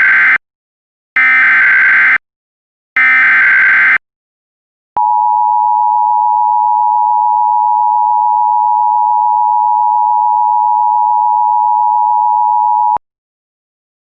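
Emergency Alert System header: the end of one SAME digital data burst, then two more bursts of about a second each, followed by the steady two-tone EAS attention signal held for about eight seconds and cut off abruptly. The sequence signals an incoming National Weather Service severe thunderstorm warning.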